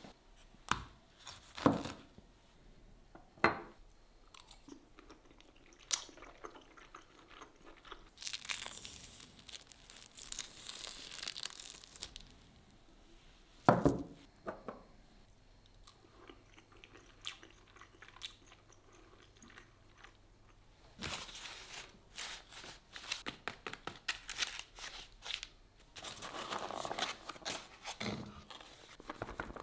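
Handling and cutting sounds: scattered knocks and clicks and a few seconds of hiss, then a knife and fork cutting a sausage on a plastic cutting board with one loud knock about halfway through. Near the end, a plastic blister tray crinkles and crackles as it is handled.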